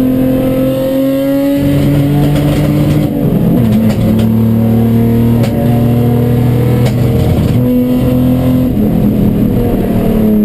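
Race car engine running hard with a misfire, its note stepping up and down through the revs and breaking up in brief stumbles several times.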